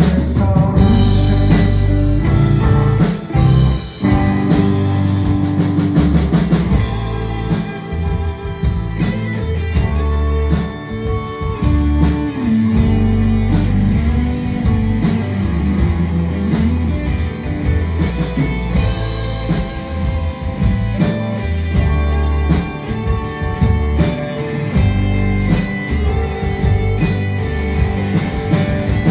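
A live rock band playing an instrumental passage, with guitar over bass and drum kit, with a brief drop in level about three seconds in.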